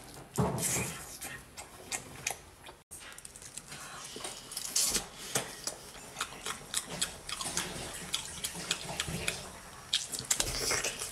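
Close-up wet eating sounds: biting, chewing and slurping spicy-sauced octopus, with many short sticky clicks and smacks from the mouth.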